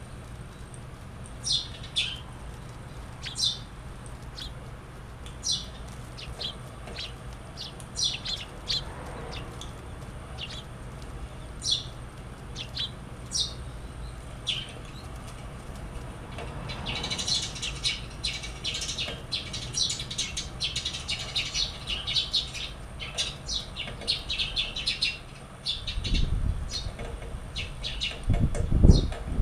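A small bird giving short, repeated falling chirps, which turn into rapid, dense chirping with wing fluttering about halfway through. Low thumps come near the end, the loudest just before it stops.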